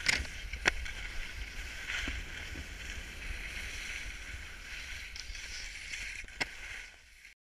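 Skis sliding over packed snow with a steady hiss and a low wind rumble on the microphone, broken by a few sharp clacks of ski impacts, the loudest about two-thirds of a second in and another near the end. The sound fades out just before the end.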